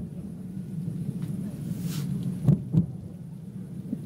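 Distant fireworks shells bursting: a sharp bang right at the start and two more in quick succession about two and a half seconds in, with a brief hiss just before them, over a steady low hum.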